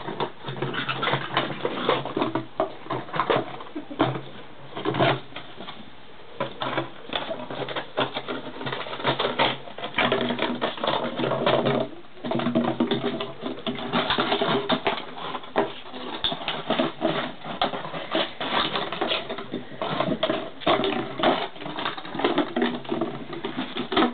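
German pinscher puppies playing on concrete: a busy clatter of rapid clicks, scuffles and patter from paws, claws, toys and a plastic bottle being knocked and chewed, with short pitched sounds mixed in during the second half.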